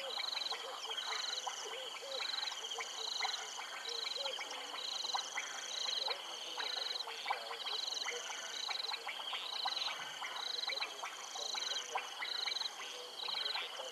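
Frogs and insects calling together. A high-pitched chirp repeats about twice a second over steady high trilling, with many short clicking calls.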